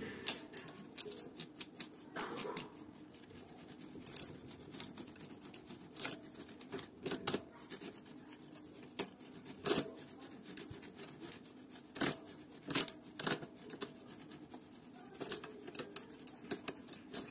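Dry, dusty electric-bike chain being scrubbed clean by hand: irregular scratching and rubbing strokes with scattered sharp clicks.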